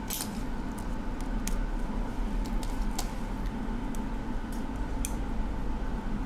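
Steady electrical hum of a repair bench with a few soft, scattered clicks and taps as the display assembly is unclipped and lifted off an opened iPhone 6 Plus.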